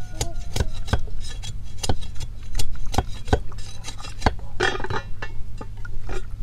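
Steel cleaver knocking into bamboo as a short length is split into thin strips, sharp irregular knocks about two or three a second. A brief scraping rustle comes near the end as a strip is pulled free.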